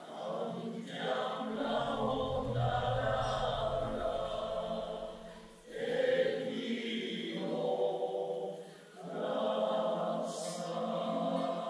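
Choir singing in phrases, with short breaks for breath about six and nine seconds in.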